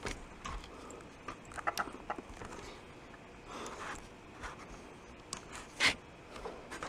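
Small plastic clicks and scrapes as a RAM stick is fumbled and pressed into a motherboard memory slot that it will not seat in, with one sharper click about six seconds in.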